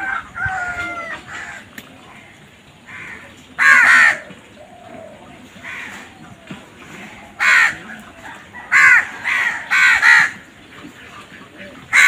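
House crows cawing: one loud harsh caw about four seconds in, then a quick run of four more caws toward the end, with fainter bird calls in the first second.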